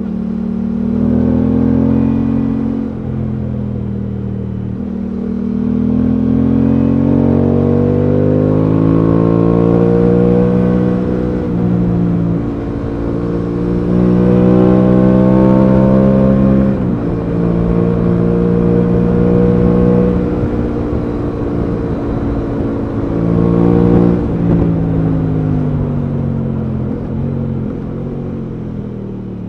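Aprilia Tuono 660's parallel-twin engine under way, heard from the rider's seat, its revs climbing and falling repeatedly with several sudden drops in pitch as the bike accelerates and slows along the lane.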